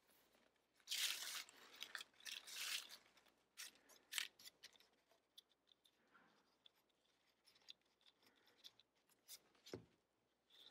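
Dried autumn leaves rustling and crinkling as they are picked up and handled, in two short bursts about a second in, then scattered light clicks and taps while glue is squeezed onto a leaf.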